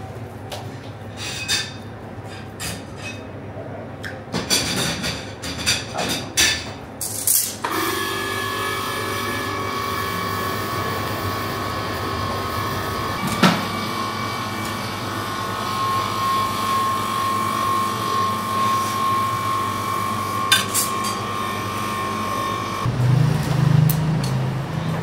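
Flat metal kebab skewers clicking and knocking against each other. About eight seconds in, a steady mechanical hum with a high whine starts and holds until near the end, with low thuds in the last couple of seconds.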